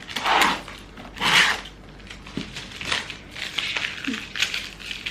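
A shipping package being opened by hand: two loud tearing rips in the first second and a half, then crinkling and rustling of the wrapping.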